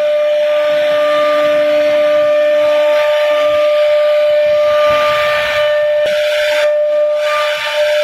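CNC router spindle running at speed with a steady high whine, over the hiss of the bit cutting a relief carving into the wooden panel.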